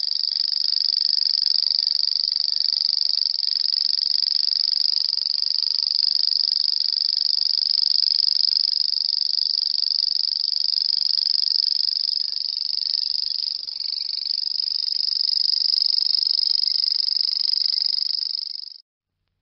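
Grasshopper stridulating: a continuous, high-pitched buzzing trill that holds steady and then cuts off suddenly near the end.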